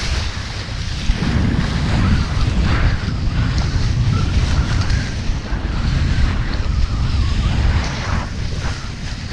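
Wind buffeting the microphone of a kiteboarder's body-mounted camera, a heavy steady rumble, over the hiss and splash of the board skimming across choppy water.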